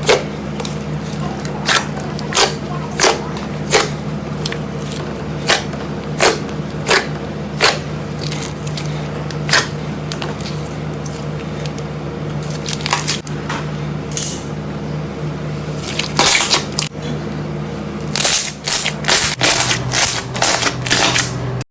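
Slime being squeezed and pressed by hand, giving sharp popping clicks: about one a second at first, sparser in the middle, then a thick run of crackling pops near the end. A steady low hum runs underneath.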